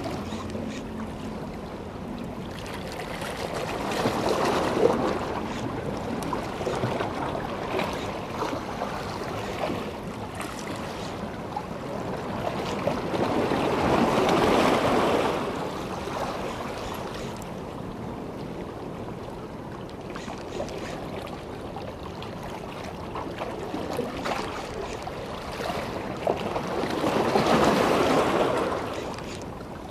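Sea water washing against the shore, a steady wash that swells louder three times, about ten seconds apart.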